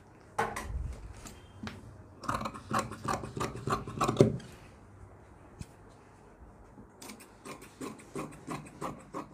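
Cloth being handled and rubbed against a wooden cutting counter, then tailoring scissors snipping through the fabric in a quick run of short cuts over the last two seconds or so.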